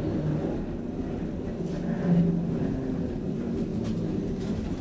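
Interior running noise of a Lidingöbanan A30B tram in motion: a steady low rumble of the car on the rails with a low motor hum, briefly louder about two seconds in.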